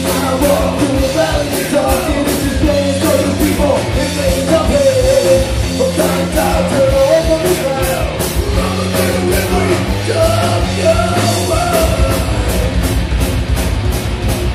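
Live heavy metal band playing loud: distorted electric guitars, bass and drums, with regular cymbal hits and a singing voice over the band.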